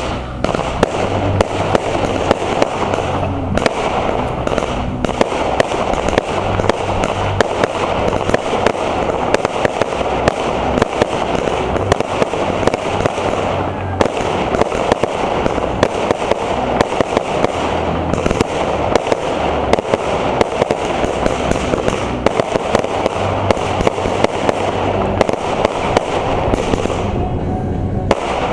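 Fireworks going off in a dense, unbroken barrage: many sharp bangs and crackling pops a second.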